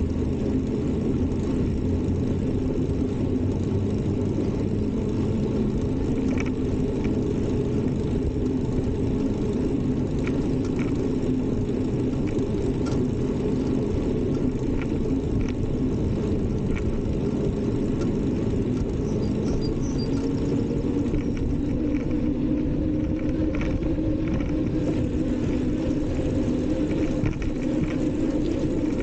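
Steady low rumble of wind buffeting the camera's microphone and tyres rolling on pavement while riding a bicycle, with a few faint ticks.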